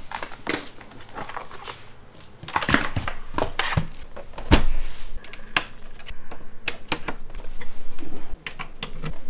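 Handling noise from an open metal desktop PC case being turned around and connected up: a string of knocks, clicks and clatters, with one heavier thump about four and a half seconds in.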